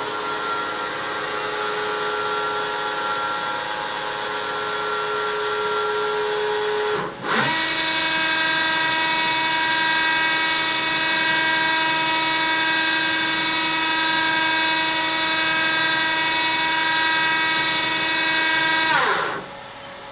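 Haas VF-5/50 CNC vertical mill's 50-taper spindle running with no tool in a steady whine of several tones. About seven seconds in it slows briefly and spins back up to a new, louder steady speed, then near the end it winds down and the sound drops.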